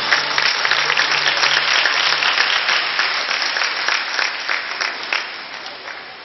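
Large audience in a stadium applauding, a dense patter of many hands clapping that thins out and fades about five seconds in.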